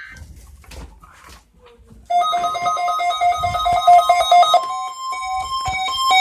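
Weather radio warning alarm test. After about two seconds of faint clicks and low rumble, an electronic alert starts: rapid beeps alternating between a low and a high pitch, about five a second. Under the beeps runs the steady single-pitch 1050 Hz National Weather Service warning tone, which is left sounding alone when the beeping stops at the very end.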